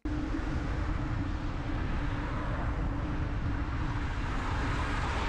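Steady wind rush and road noise from a bicycle-mounted dashcam while riding, with traffic passing on a wet road alongside and a low steady hum underneath.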